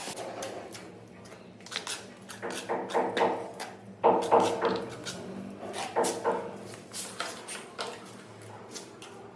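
Irregular scrapes and knocks of masonry hand work: mortar worked in a bowl, then a tool tapping a granite threshold strip to bed it. The loudest knocks come about four seconds in.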